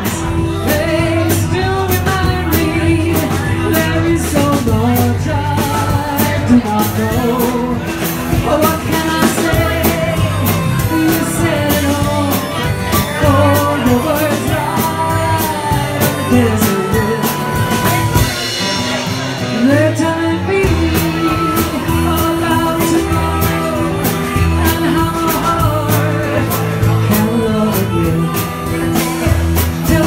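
Live blues-rock band playing an instrumental break: a harmonica carries a bending lead line over strummed acoustic guitar, electric bass and drums.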